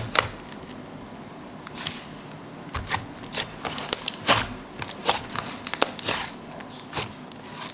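Smooth slime being swirled and spread by hand, giving irregular crackling clicks and pops over a soft hiss.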